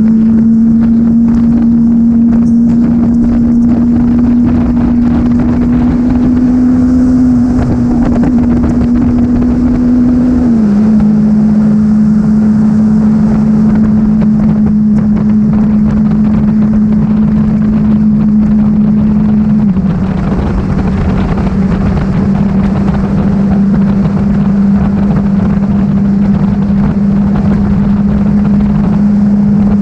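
Motorcycle engine running steadily at highway cruising speed, with wind rushing over the microphone. The engine's pitch steps down slightly twice, about a third of the way in and again about two-thirds in, as the throttle eases.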